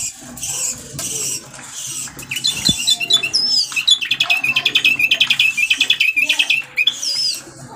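Caged bulbul singing: high whistled notes with swooping glides, then a fast chattering run of repeated notes for nearly three seconds, ending with another swooping whistle.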